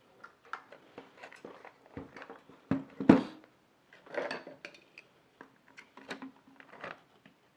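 Hands handling a stock processor cooler and its box: scattered light clicks and knocks, with a louder knock about three seconds in.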